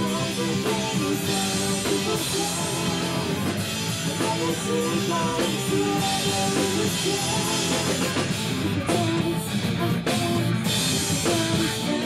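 A rock band playing a song with drum kit, electric guitar, bass and keyboard synth, and a male lead vocal singing over them.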